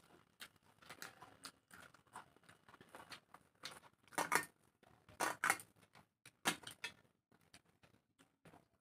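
Close-miked eating by hand: wet chewing and mouth smacks, with fingers working rice and curry on steel plates, heard as a string of short, sharp clicks that come thickest and loudest from about four to seven seconds in.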